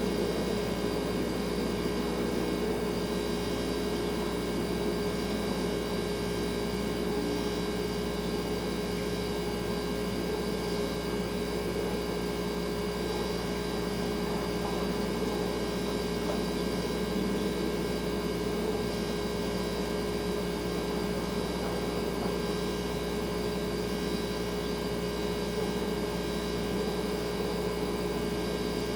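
Refrigerator running with a steady hum made of several fixed tones over a faint hiss.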